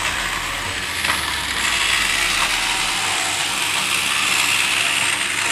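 Battery-powered motor and plastic gears of the Encore Omega Supreme's toy tank running steadily as it drives round its plastic track.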